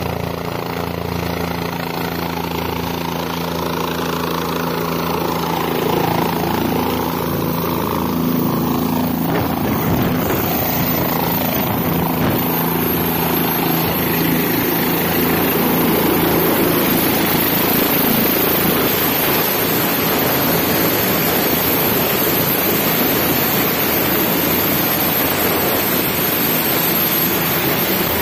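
Helicopter close by, engine and rotor running. Steady low tones at first, then a loud, even rush of noise builds from about six seconds in and holds.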